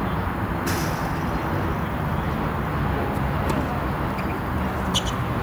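Steady low outdoor rumble, like distant traffic, with a single sharp tennis-ball strike, racket or court, less than a second in and a few light ball pops later, the clearest near the end.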